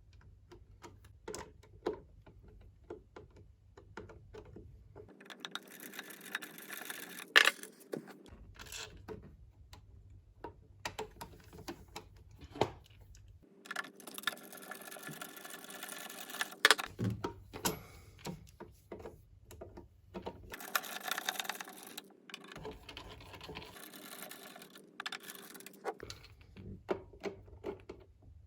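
Clicks, knocks and scraping of hand work on a mains wall socket, broken by four runs of a small motor lasting two to three seconds each.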